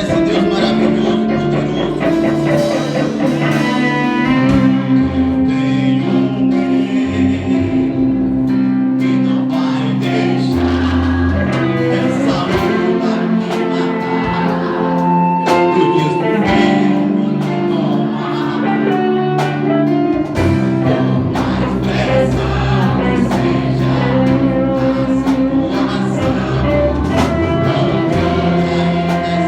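Live gospel worship music: a band playing steadily, with a sung voice carrying the melody over it.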